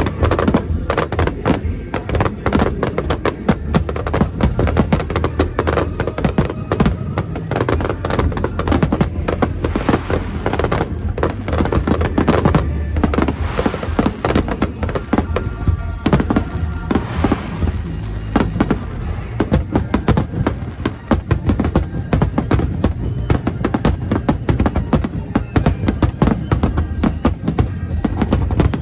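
Starmine fireworks finale: many shells bursting in rapid succession, a continuous barrage of booms and cracks several a second, over an upbeat samba song playing loudly along with the display.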